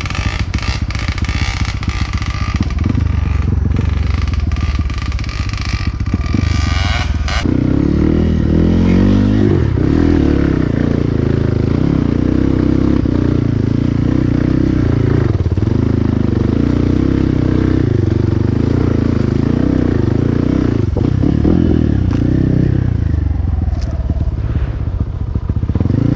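Trail motorcycle engine running hard along a rough track, with clattering and scraping over the first several seconds. About seven seconds in it settles into a lower, steadier engine note that rises and falls with the throttle.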